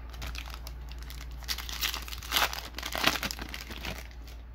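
Trading card pack wrapper crinkling and tearing as it is ripped open, in a series of rustling bursts that are loudest about two and a half and three seconds in.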